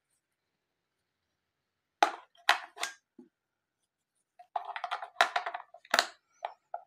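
AA batteries clicking and rattling against the plastic battery compartment and contact springs of a mini digital kitchen scale as they are fitted. There are a few sharp clicks about two seconds in, then a quicker run of clicks and taps near the end as the cells are pressed into place.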